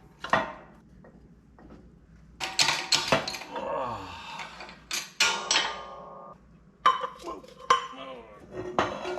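Metal tools and engine parts clinking and knocking together in a string of sharp hits, with one piece ringing for about a second midway, as a Cummins C160 diesel engine is being taken apart.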